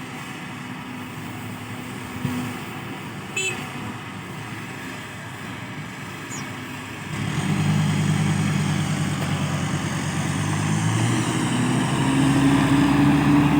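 Heavy diesel earthmoving machinery: an engine running steadily that comes up much louder about halfway through and keeps building, with a brief high chirp near the start.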